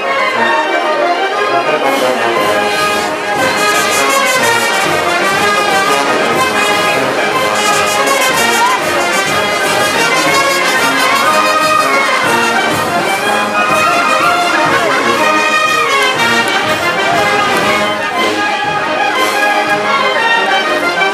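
Live village brass band playing dance music: trumpets and trombones carry the tune over sousaphones and a steady bass-drum beat.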